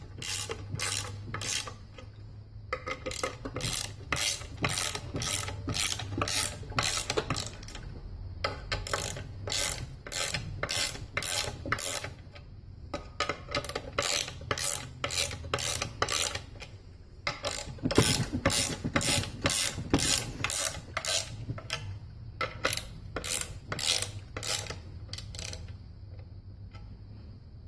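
Ratchet wrench clicking about three times a second in several runs with short pauses, tightening the bolts of a homemade wooden spring compressor that presses a transmission clutch's spring retainer down against its springs.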